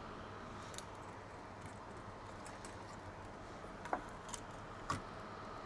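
Faint steady hum with a few light metallic clicks and taps, the clearest two about four and five seconds in, from small tools handled while hand-soldering a laptop charging port's pins.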